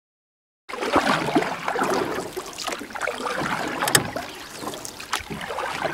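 Water splashing and sloshing in a busy, irregular stream of small splashes, starting under a second in.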